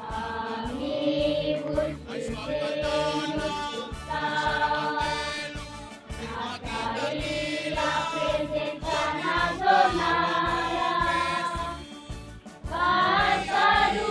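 A choir or group singing a melody over music with a steady beat.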